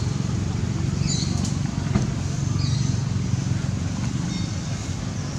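Steady low outdoor rumble, like wind on the microphone or a distant engine, with two short high bird chirps, the first about a second in and the second near the middle.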